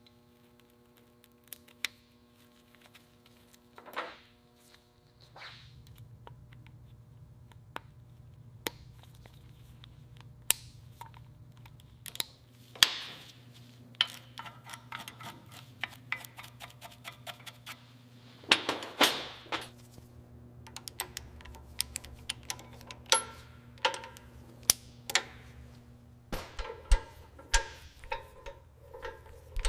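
Hand work on metal parts and tools: scattered clicks, taps and knocks, with louder clusters about 13 and 19 seconds in and a busier run near the end, over a steady low hum that drops out a few seconds before the end.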